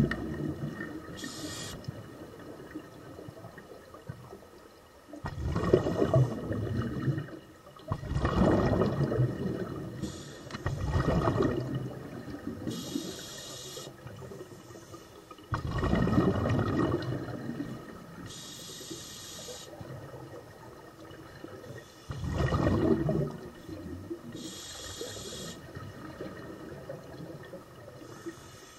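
Scuba regulator breathing heard underwater: a short hiss of air through the regulator on each inhale, then a burst of bubbles gurgling out on each exhale, repeating every few seconds.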